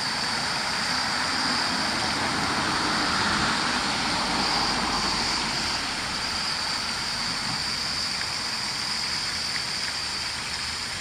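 Steady rushing background noise at night, swelling slightly a few seconds in, with a thin steady high-pitched whine above it.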